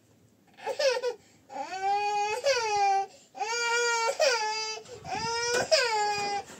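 A baby crying: a short cry about half a second in, then three long, high-pitched wails with brief catches of breath between them.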